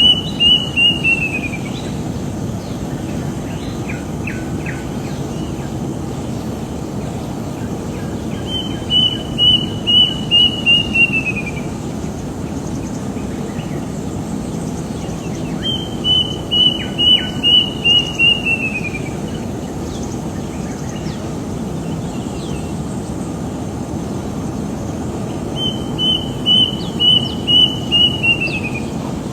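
A bird singing the same short phrase four times. Each phrase is a quick run of about six even whistled notes that slides down at the end. A steady low background rumble runs throughout.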